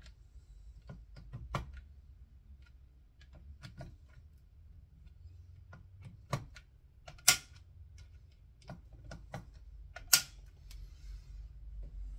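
Scattered small clicks and taps of hand tools working scope ring screws as they are snugged down, with two louder sharp clicks about seven and ten seconds in.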